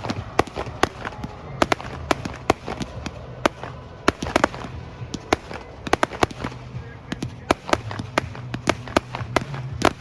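Fireworks going off in quick, irregular succession: many sharp bangs and pops, several a second, over a steady low rumble.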